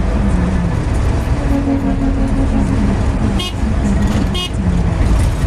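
Steady engine hum and road rumble inside a moving car. A little past the middle come two short, high vehicle-horn toots about a second apart.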